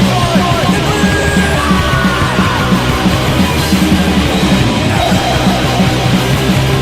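Punk rock band playing at full volume: distorted guitar, bass and drums pounding out a fast, even beat, with a yelled vocal.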